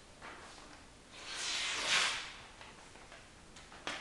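A 10-inch knife blade (Ricardo Vilar Lobo Guará) slicing through a sheet of paper: one hissing slice of about a second, starting about a second in. A short click near the end.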